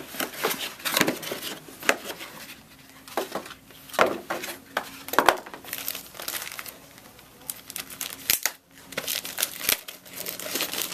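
Packaging crinkling and rustling in irregular bursts as a netbook is unwrapped and lifted out of its box, with a few sharper crackles about four and five seconds in.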